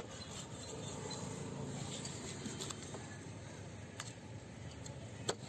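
Long knife slicing a spotted scat into steaks on a wooden chopping block: scraping strokes through flesh and bone, with a few sharp knocks as the blade hits the block, the loudest near the end.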